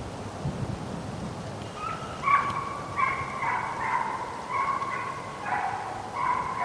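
Deer-drive hunting hounds barking and baying, a string of about eight drawn-out calls that starts about two seconds in.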